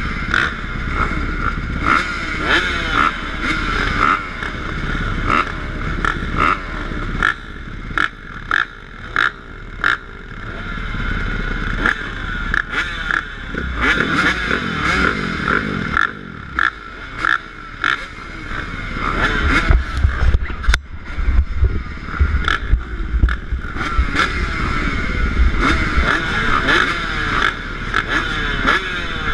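A line of motocross dirt bike engines running at the starting gate, their revs rising and falling as riders blip the throttles, with scattered sharp clacks. The sound grows louder and deeper about two-thirds of the way in.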